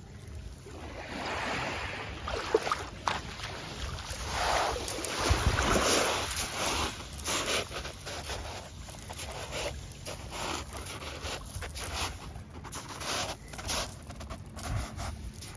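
Small waves washing up over a pebble beach, each swash rising and fading. In the second half, footsteps crunch on the pebbles, with a low wind rumble on the microphone.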